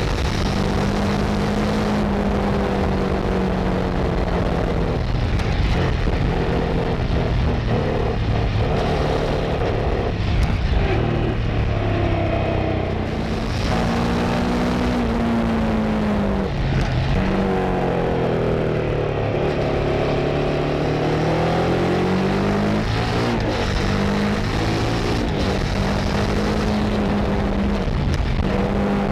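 Kove 800X Pro's parallel-twin engine and exhaust under way, the pitch climbing and falling repeatedly as the bike accelerates out of and slows into curves, dropping lowest about two-thirds through before pulling up again. Wind noise runs underneath.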